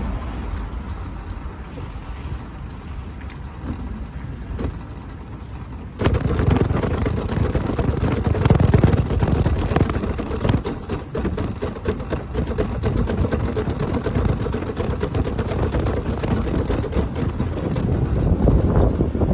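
Mobility scooter rolling across a bridge deck: a steady rumble and rattle from its wheels and motor. The rumble jumps suddenly much louder about six seconds in and stays that way.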